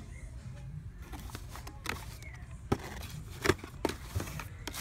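Boxed die-cast model cars being handled and shuffled on a store shelf: several sharp knocks of the plastic-windowed boxes against each other and the shelf, the loudest about three and a half seconds in, with some rustling of packaging.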